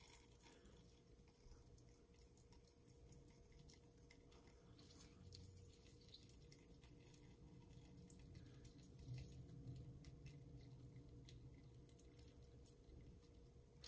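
Near silence: faint squishing of a wet cloth bundle of grated cucumber being wrung out, with a thin trickle of water and a few small ticks, over a faint steady hum.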